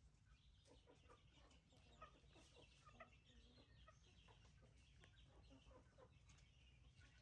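Faint clucking of chickens, scattered short calls over a low background rumble.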